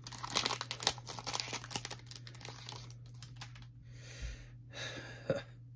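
Foil trading-card pack wrapper crinkling with quick crackles as it is handled. About two-thirds through come a few softer swishes as the cards are slid out and handled.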